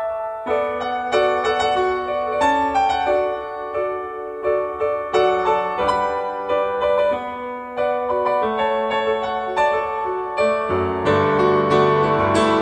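Background piano music: a gentle melody of separate notes, with lower, fuller chords coming in about eleven seconds in.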